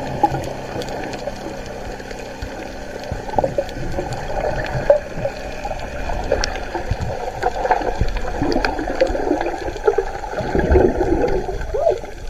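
Muffled underwater water noise as heard by a submerged camera: gurgling and sloshing with scattered short clicks and taps.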